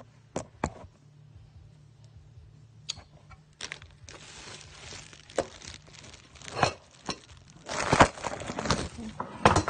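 Handling noise from a phone camera being picked up and moved about: scattered clicks and knocks, then denser rustling and rubbing, loudest about eight seconds in.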